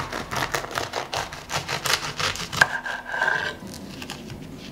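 A knife sawing back and forth through a crisp baked choux pastry shell on a wooden board: a quick run of scratchy crunching strokes, about five a second, then a sharp snap about two and a half seconds in and a short crackle as the shell comes apart.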